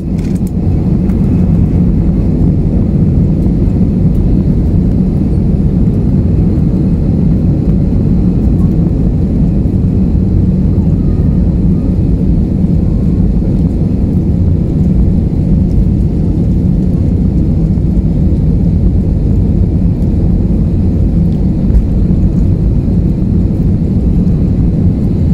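Jet airliner cabin noise during the take-off run: a loud, steady low rumble of the engines and the rolling undercarriage, heard from a window seat over the wing.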